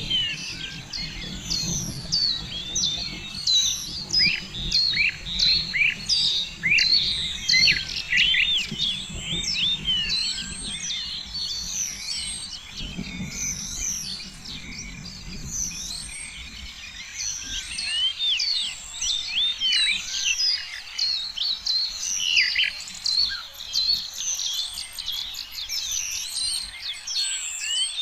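Many small birds chirping and twittering at once, a dense overlapping chorus of quick high notes and sweeping calls.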